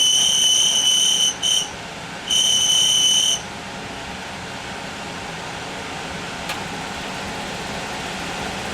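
RV furnace blower fan running steadily, with a loud high whining squeal that sounds three times in the first three and a half seconds (long, short, long) before the fan runs on alone. A single sharp click about six and a half seconds in.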